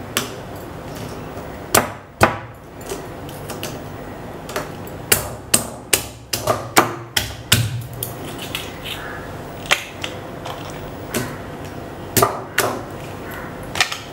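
Crab pieces pounded lightly in a heavy stone mortar: irregular sharp knocks and cracks, a few a second, as the shells are broken to free the crab meat inside.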